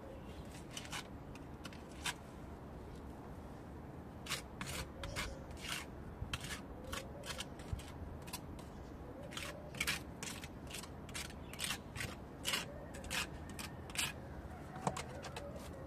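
Small plastering spatula scraping and spreading mortar over a holed concrete-block wall: a run of short, dry scraping strokes in irregular groups, busiest in the middle and latter part.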